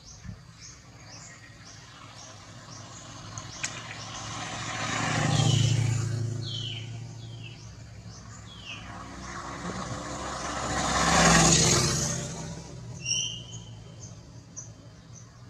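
Two vehicles passing, each swelling and fading over a few seconds, the second louder, peaking about eleven seconds in. Under them, a bird chirps steadily, short high notes about two to three a second, with a few lower descending chirps in between.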